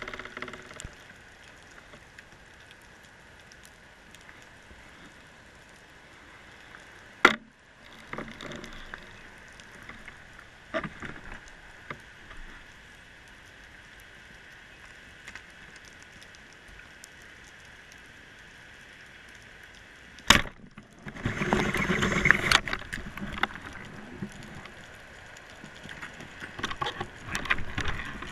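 Underwater ambience recorded by a diver's camera: a steady quiet hiss with two sharp clacks, one about seven seconds in and one about twenty seconds in. The second clack is followed by a couple of seconds of louder rustling, and busier handling noise comes near the end.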